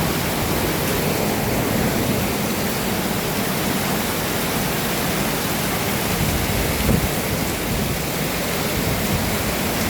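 Heavy rain falling in a steady downpour, an even rushing hiss with one brief louder swell about seven seconds in.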